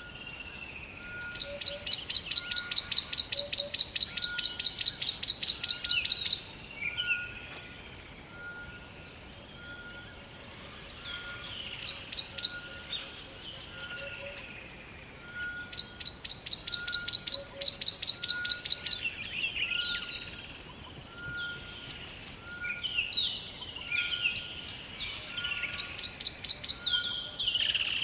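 Several birds singing in a forest. Three times a bird gives a long, fast, loud trill of high notes. Under it runs a steady series of short, even notes about once a second, with scattered quick chirps between.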